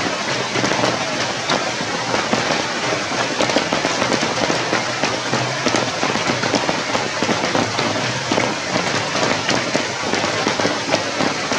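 Steady rain: a dense, even crackle of many drops landing close by.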